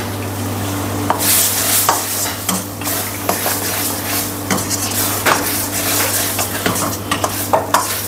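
Metal ladle stirring chicken pieces through thick bubbling masala gravy in a steel kadai, with wet sizzling and irregular scrapes and clinks of the ladle against the pan, starting about a second in. A steady low hum runs underneath.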